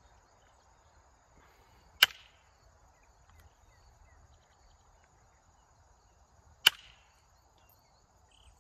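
Moose antler tool striking the edge of a flint spear point during final shaping and sharpening: two sharp, glassy clicks as small flakes come off, about two seconds in and again near seven seconds.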